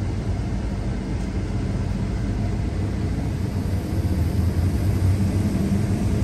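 New Holland combine harvester running while picking corn: a steady engine-and-machinery drone with a low hum that swells slightly in the second half.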